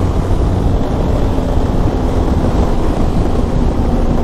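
Benelli TRK 502X's 500 cc parallel-twin engine running steadily at highway cruising speed, a constant hum buried under loud wind noise on the microphone.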